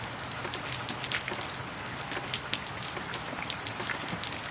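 Rain from a tropical storm falling steadily: a dense, irregular patter of sharp drop hits.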